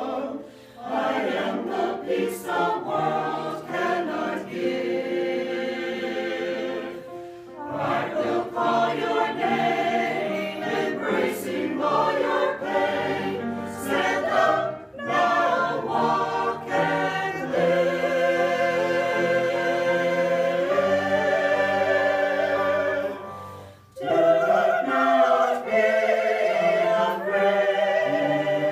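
A choir singing a gospel worship song, in phrases with short breaks between them.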